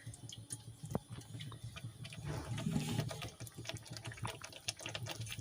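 Tomato and green-chilli paste cooking wet in a frying pan as a spatula stirs it, with light scrapes and clicks of the spatula against the pan over a steady low hum.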